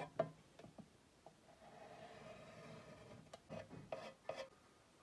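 Faint scratching of a pencil drawing lines on a painted surface. There are a few short strokes near the start and a quick run of strokes just after the middle.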